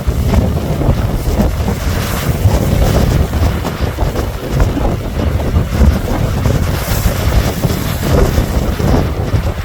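Strong wind buffeting the microphone as a constant low rumble, over the rushing hiss of ocean waves and surf.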